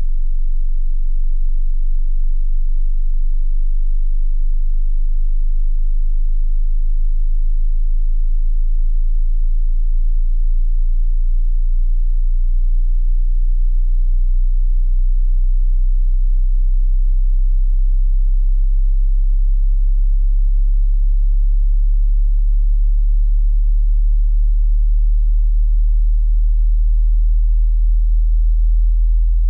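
Pure sine test tone at a very low pitch, near the bottom of the range of human hearing, held at a steady loudness. It is slowly climbing in pitch as part of a hearing-test frequency sweep.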